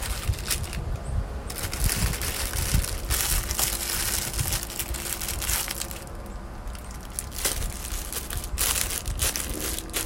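Clear plastic bag being crinkled and handled, rustling in irregular bursts.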